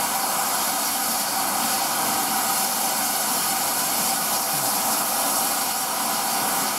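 Steam hissing steadily from GWR 2-8-0 tank locomotive No. 5239 as it stands at the platform.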